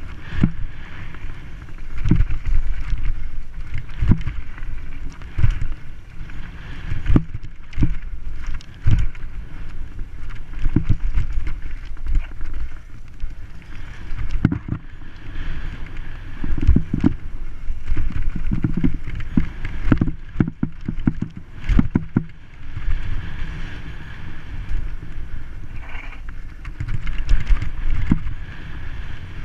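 Downhill mountain bike riding on a dry dirt trail: wind buffeting the helmet-mounted camera's microphone as a steady low rumble, broken by frequent sharp knocks and rattles as the bike hits bumps.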